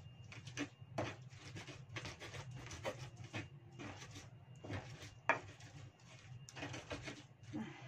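A pestle grinding shallots, garlic, chili and salt into a paste in a shallow cobek mortar: irregular scraping and rubbing strokes, one or two a second, with a sharper knock about five seconds in.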